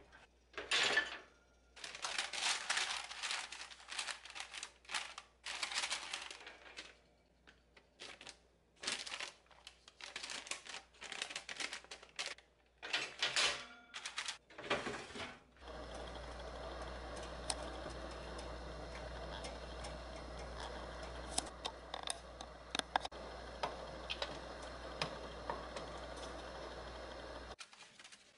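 Baking paper crinkling and rustling in irregular bursts as a raw pizza base on it is handled and pressed onto the grill tray. From about halfway a steady low hum with occasional faint ticks takes over, then stops abruptly near the end.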